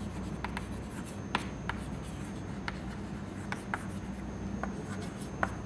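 Chalk writing on a chalkboard: a string of irregular short taps and scrapes as each letter is formed, over a steady low room hum.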